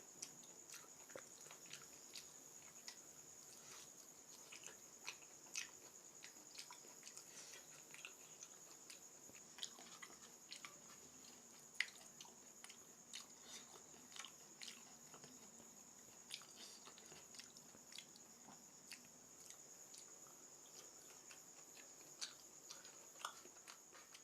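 A person eating cooked goat mutton: faint, irregular chewing and biting with small wet mouth clicks, over a steady high-pitched whine.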